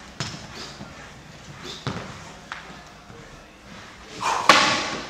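Squash shoes on a wooden court floor during footwork drills: a few separate thuds of landing feet, then a louder scuff near the end as he pushes out of a lunge.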